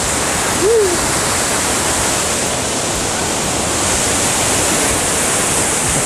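Jembong waterfall pouring close by: a steady, loud rush of falling water. A brief voice-like sound rises and falls once, about a second in.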